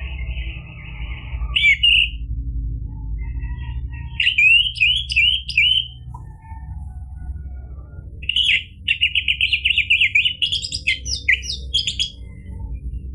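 Orange-headed thrush singing: a buzzy call at the start, a phrase of quick rising notes about four seconds in, then a long rapid run of varied notes from about eight seconds in. A steady low rumble runs underneath.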